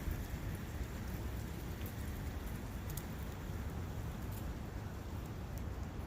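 Steady rushing of a forest brook, with a few faint ticks about halfway through.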